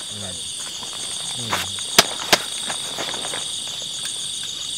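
Steady chorus of forest insects: a continuous high buzz with a faster pulsing trill above it. About two seconds in it is broken by two sharp clicks a third of a second apart.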